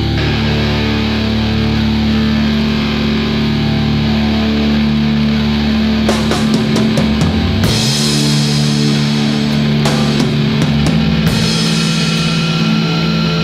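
Rock song with guitars, bass and drums; cymbal hits come in about six seconds in and the cymbals ring on through the rest.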